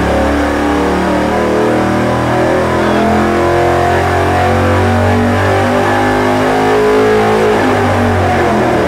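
Ford 351 Windsor small-block V8 running at full throttle on an engine dyno, pulling up through its rev range toward about 6,000 rpm, with music laid underneath.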